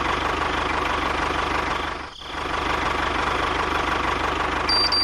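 Tractor engine running steadily with a fast, even chugging beat, dipping briefly about two seconds in. A high beeping tone starts near the end.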